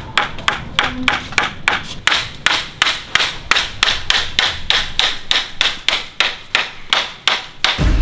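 Hammer driving nails into a wooden board: a fast, even run of sharp strikes, about three or four a second, that stops shortly before the end.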